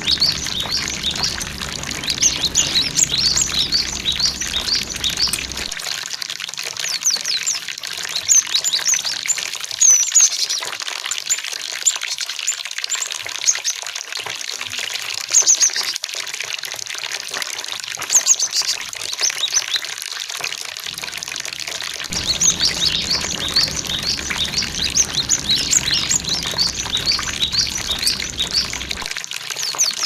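Cinereous tits (gelatik batu) calling in a rapid run of short, high chirps over flowing water. The water's rushing drops away from about 6 s in and returns at about 22 s.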